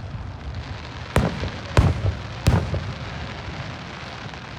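Fireworks display: three aerial shells burst with sharp booms about two-thirds of a second apart, starting about a second in. Each boom trails off into a low rumbling echo, over a steady crackle and hiss.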